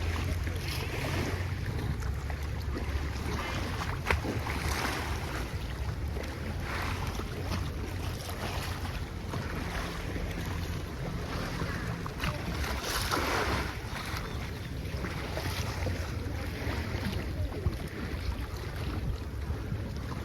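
Sea waves breaking and washing up the shore at high tide, in repeated surges that swell and fade, one of the largest a little past the middle. A steady low rumble of wind on the microphone runs underneath.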